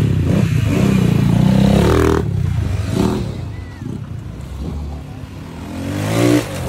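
Several motorcycle engines running as the bikes pull away one after another, loud at first and then fading. Near the end one bike revs up, rising in pitch to the loudest point, then drops off sharply.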